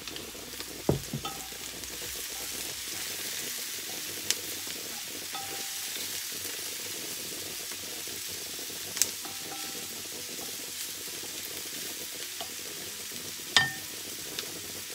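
Mushrooms and carrots sizzling in a stainless steel frying pan over a gas flame, stirred with a wooden spatula. Four sharp knocks stand out, the loudest near the end with a brief metallic ring.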